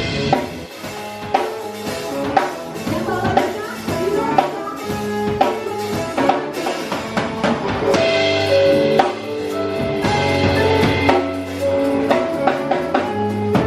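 Music with a drum kit keeping a steady beat under held melodic notes.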